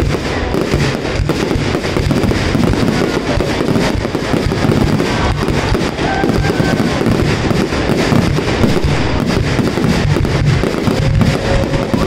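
Dense, continuous barrage of fireworks: overlapping bursts and crackling with no pauses, at a steady loud level.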